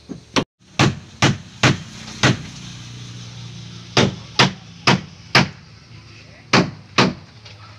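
Hammer driving nails into new wooden planks on a wooden boat's hull: eleven sharp blows in three runs, roughly two a second, with short pauses between the runs.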